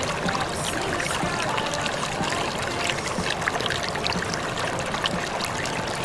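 River water rushing over rocks in a small cascade, a steady even rush.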